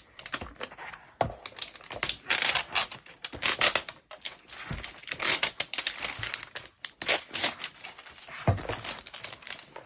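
Plastic wrapping crinkling and tearing in quick, irregular rustles as a Rainbocorns surprise egg is unwrapped by hand, with a couple of dull bumps from handling.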